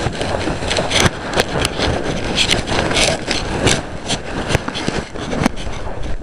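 Handling noise from a phone camera rubbing and scraping against clothing, with scattered sharp clicks and knocks.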